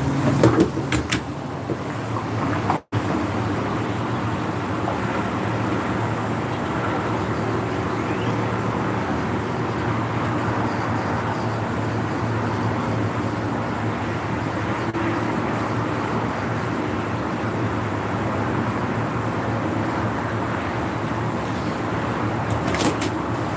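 Steady vehicle noise heard inside a car cabin: an even hiss over a low hum. The sound cuts out for an instant about three seconds in.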